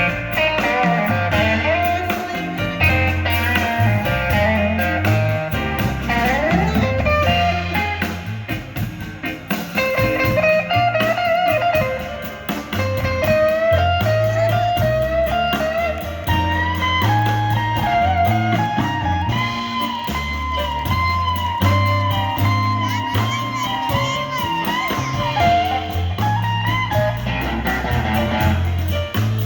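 Blues band playing an instrumental break, an electric guitar taking a bending lead line over a walking bass line.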